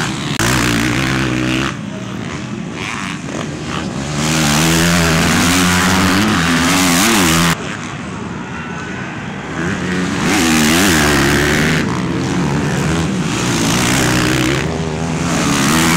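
Motocross dirt bikes racing past with their engines revving hard, the pitch repeatedly rising and falling with the throttle. The sound jumps abruptly in loudness several times.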